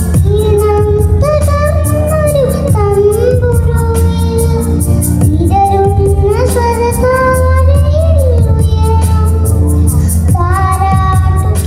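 A young girl singing a Malayalam Christmas song into a handheld microphone, with held, gliding notes over instrumental accompaniment with a steady beat.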